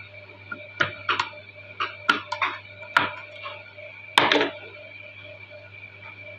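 Tailoring scissors snipping off excess cloth in a string of short, sharp snips over the first three seconds, then a louder knock about four seconds in, over a faint steady hum.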